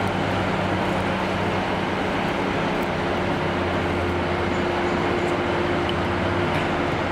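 Freightliner Class 70 diesel locomotive's V16 engine running as it approaches slowly: a steady low drone, with a thinner held tone coming in a few seconds in.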